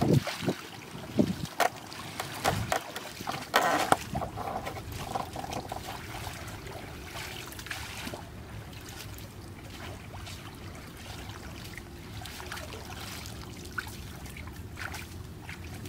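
Shallow muddy water splashing and sloshing as a woven basket fish trap is pushed down into it. There is a run of sharp splashes in the first few seconds, then quieter, steadier sloshing.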